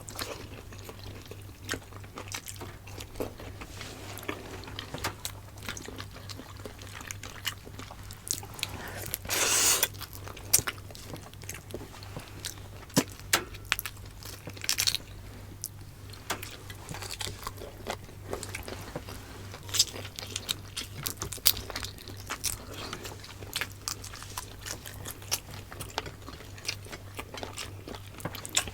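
Close-miked eating: chewing and biting on pork adobo and rice, with many short wet clicks of the mouth. About a third of the way in there is a louder rushing sound lasting about a second. A steady low hum runs underneath.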